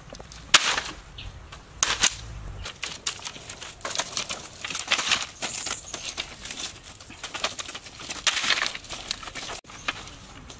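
Bamboo poles knocking and rustling as they are handled, in irregular bursts of rustle and clatter with a few sharp knocks.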